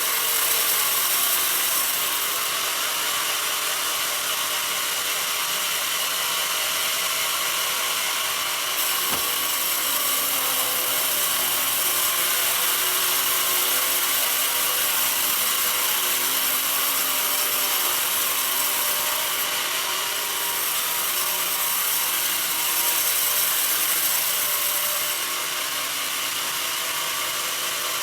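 Sawmill band saw running and cutting through a mahogany log: a steady, hissing sawing noise with a light mechanical rattle.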